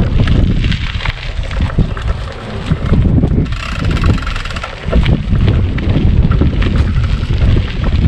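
Wind buffeting the microphone: a loud, gusty low rumble with scattered knocks. It eases off briefly about two and a half seconds in and again just before five seconds.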